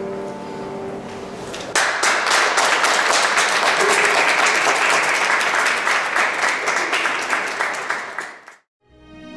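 The final chord of a choir with piano dying away, then audience applause breaking out suddenly about two seconds in and fading out near the end.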